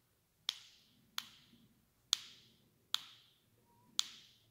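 Five sharp clicks, each with a short ring, at uneven gaps of under a second, as a rubber-and-plastic chainsaw keychain is handled.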